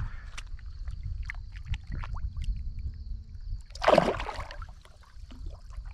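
A hand plunging into shallow pond water to release a largemouth bass, with one loud splash about four seconds in, over a steady low rumble on the microphone and small scattered water ticks.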